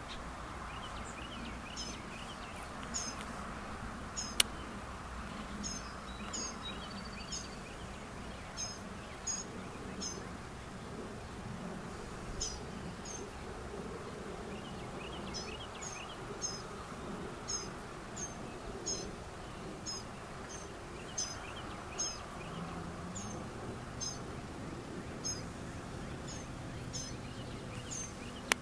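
Birds chirping: short, high chirps repeated every second or so over a steady background noise, with one sharp click about four seconds in.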